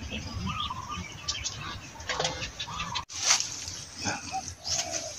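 Small birds chirping now and then over faint outdoor background noise, with a brief dropout about three seconds in.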